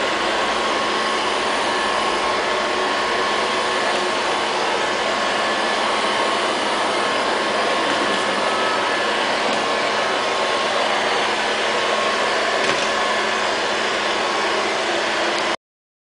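LL-302 robot vacuum cleaner running with a steady whir and a few faint steady tones. It stops abruptly near the end.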